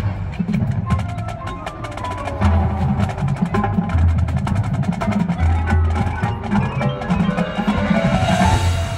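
Marching band playing its field show: quick, dense drum and percussion strokes with the front ensemble's mallet instruments ringing short pitched notes over deep sustained bass notes.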